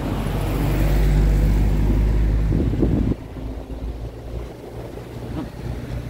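Road traffic on a busy street: a vehicle engine's low rumble close by, which cuts off suddenly about three seconds in and leaves a quieter steady traffic hum.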